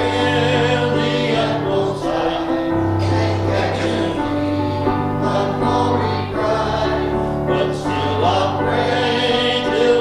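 A church congregation of men and women singing a hymn together, with an instrument holding steady low bass notes that change about every two seconds.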